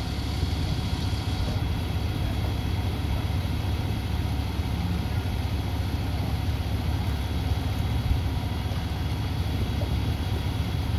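Truck engine idling steadily with a low, even sound.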